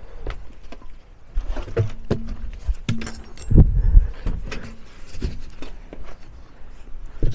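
Metal clinks, taps and knocks of hand work at a car's rear wheel hub, with a couple of heavy thuds a little past halfway.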